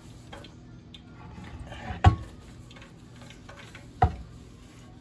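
Paper towel rubbing in a glass baking dish, then two sharp knocks about two seconds apart as the glass dish is bumped and set down on a hard surface.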